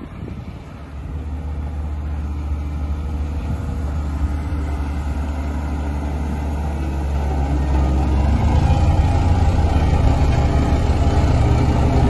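Diesel engine of a Dynapac single-drum road roller running as the roller drives closer over gravel. A steady low hum that grows louder about a second in and again near eight seconds in.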